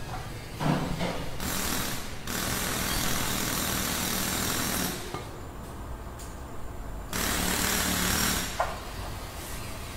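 Harsh, rattling machine noise like a jackhammer or power tool, in two long bursts that start and stop abruptly: the first runs about three and a half seconds, and the second about a second and a half near the end. A low steady hum runs underneath.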